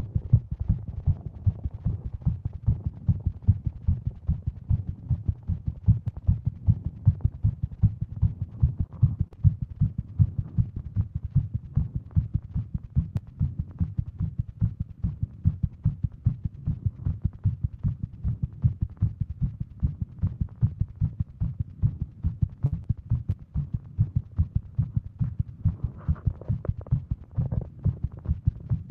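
A woman's heartbeat: fast, regular low thumps at a rate over 150 a minute. It is a tachycardia episode, which she puts down to Wolff-Parkinson-White syndrome.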